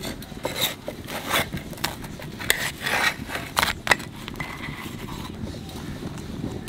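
Irregular clicks and short scrapes, thickest in the first four seconds: a metal spatula working a roti on an iron tawa.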